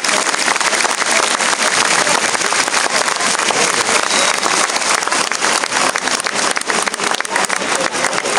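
A large crowd applauding, a dense steady patter of many hands clapping.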